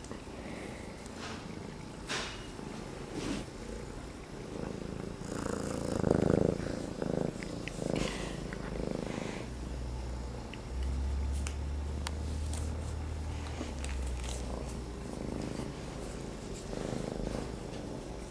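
Six-month-old gray tabby kitten purring close to the microphone, the purr strongest from about ten seconds in. Rustling and bumps of fur and clothing come with it as the kitten is petted and climbs, the loudest about six seconds in.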